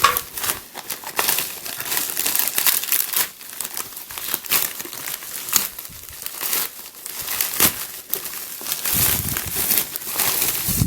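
A parcel being opened by hand: packaging crinkling and rustling, with some tearing.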